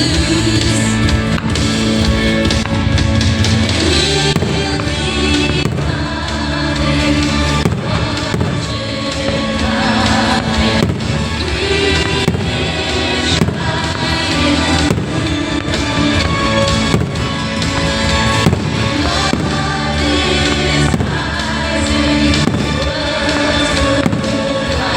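Fireworks bursting again and again over loud show music.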